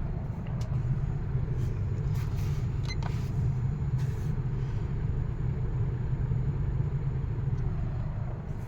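1974 Lakewood model S23 box fan, with its Marco motor, running steadily on low speed: an even low hum and rumble of motor and moving air.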